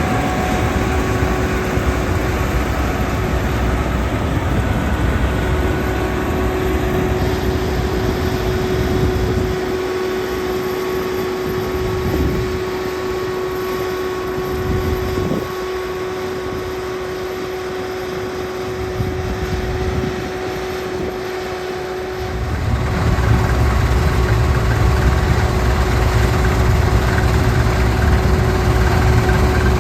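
Deutz-Fahr combine harvester running in the wheat, a steady machine noise with a constant whine over it. The deep rumble drops back for about twelve seconds, starting about ten seconds in, then returns louder.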